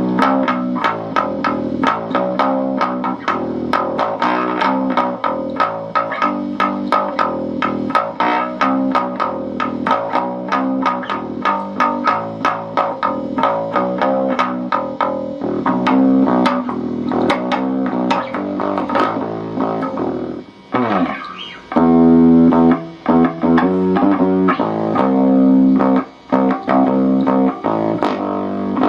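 Electric bass guitar played loud through an Epiphone Studio 15B bass amp, volume at 8 and EQ at 7. It plays a fast run of plucked notes, slides down in pitch about twenty seconds in, then plays slower, held notes. At this volume the amp's background noise grows, which the player puts down to the cable or the bass's passive pickup.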